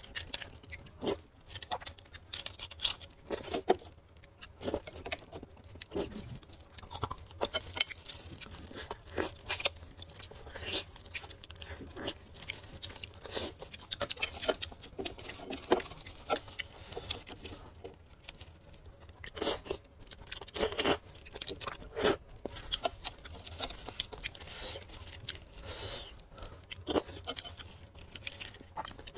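Close-miked eating sounds from braised beef marrow bones: irregular wet chewing and smacking, mixed with clicks and scrapes of a thin metal spoon digging marrow out of the bone.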